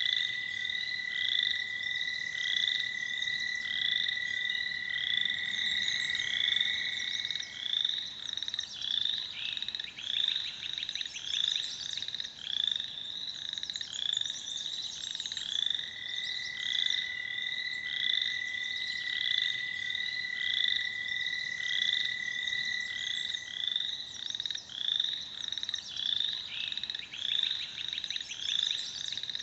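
Frog chorus: an American toad's long, steady, even-pitched trill holds for about seven seconds, stops, and starts again for about eight seconds near the middle. Beneath and between it, other frogs keep up short, higher calls about twice a second, with bursts of rapid pulsed trilling.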